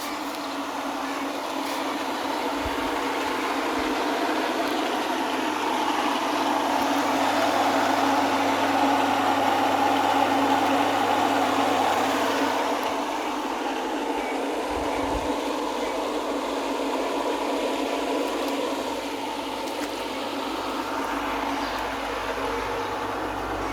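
Pool vacuum pump running steadily, a constant hum with a whirring rush above it that swells for a few seconds near the middle and then settles.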